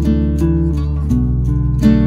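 Background music led by a plucked string instrument, with regular note onsets over a held bass note that changes about a second in.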